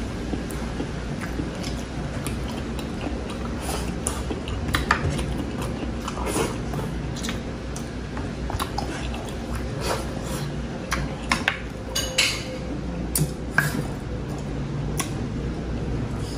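A person eating rice and beef soup by hand, close to the microphone: chewing and mouth sounds with scattered clicks and clinks of dishes, over a steady low hum.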